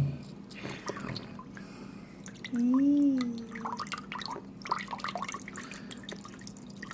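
Water dripping and trickling from a cut-open, water-filled slime squishy ball, with scattered small wet clicks. About three seconds in, a person makes a short wordless hum that rises and falls.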